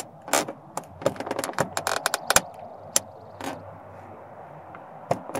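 Scattered light clicks and taps of a flat-head screwdriver tip and fingers against the hard plastic door courtesy light lens and trim panel. The clicks are thickest in the first three seconds, then thin out to a few near the end.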